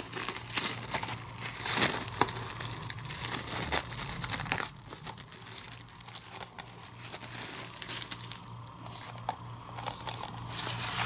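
Clear plastic shrink wrap being torn and peeled off a Blu-ray case, crinkling and crackling, loudest in the first few seconds and softer after.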